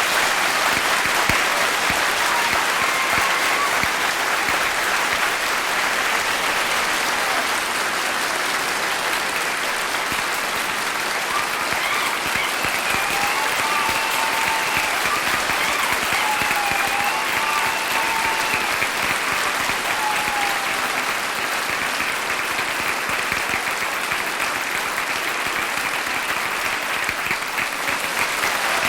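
A large audience applauding steadily in a big hall: dense, continuous clapping that holds an even level throughout.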